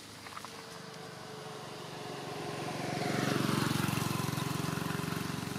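A motor vehicle driving past on the road: its engine and tyre noise swells to its loudest about three and a half seconds in, with a falling whine as it passes, then begins to fade.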